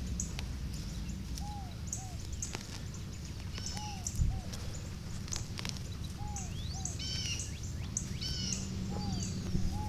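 Several birds calling: one repeats a pair of short, arched mid-pitched notes every couple of seconds while others add high chirps and quick note series. A steady low rumble of wind runs underneath.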